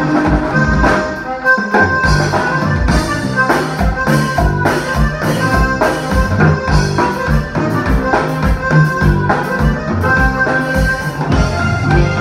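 Live conjunto band playing, with a red button accordion carrying the melody over electric bass and a drum kit keeping a steady beat.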